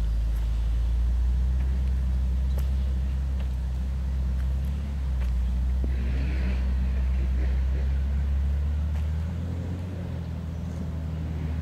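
A four-wheel-drive's engine running at low revs close by, a steady low rumble. Its note drops a little about nine seconds in.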